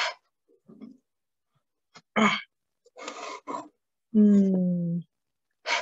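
A woman's voice sounding out single letter sounds while tracing letters: short breathy sounds, then a held, slightly falling 'nnn' hum about four seconds in.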